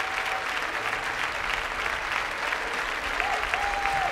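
Large audience applauding steadily, a dense continuous clapping.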